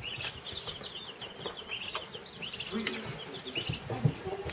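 A brood of baby chicks peeping continuously, many short high peeps overlapping. A single sharp knock about four seconds in.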